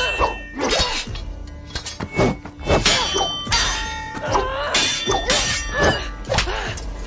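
Steel swords clashing again and again in a fast sword-fight exchange: sharp metallic clangs, some ringing briefly, with thuds of blows. A film music score runs underneath.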